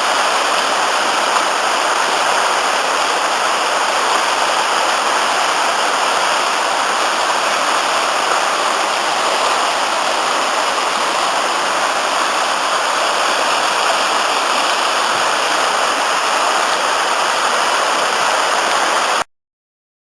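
Waterfall on the Afon Nantcol, swollen after several days of rain, making a steady rushing sound of falling water. It cuts off suddenly near the end.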